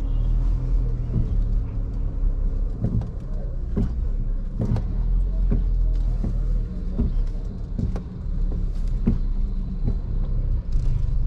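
In-cabin sound of a Maruti Suzuki Swift AMT moving slowly over a potholed, broken road: a steady low engine and road rumble. Repeated short knocks from the wheels and suspension come about every second as the car goes over the bumps.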